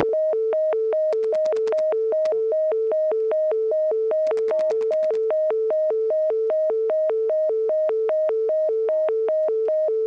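Telephone line carrying the Bell System Dimension PBX's invalid-dialing tone, switching back and forth between two pitches about three times a second, heard from outside through an ESS office. Runs of rapid clicks ride over the tone about a second in and again around four seconds.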